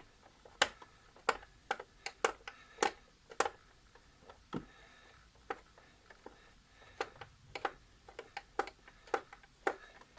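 Irregular sharp clicks and taps of a screwdriver working screws out of the coffee machine's plastic bottom housing, some strokes much louder than others.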